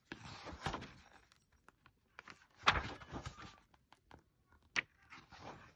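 Pages of a hardcover picture book being turned by hand: short paper rustles, a louder swish with a soft thud about two and a half seconds in, and a single sharp tap near the end.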